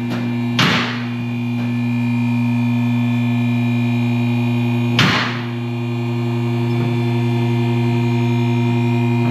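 Steady low mechanical hum with a stack of overtones, broken by two sharp knocks, one just after the start and one about five seconds in.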